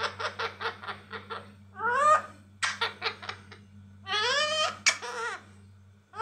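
Rose-ringed (Indian ringneck) parakeet mimicking laughter: quick high-pitched 'ha-ha-ha' pulses, about seven a second, broken by a rising call about two seconds in and a longer call with bending pitch around four to five seconds in.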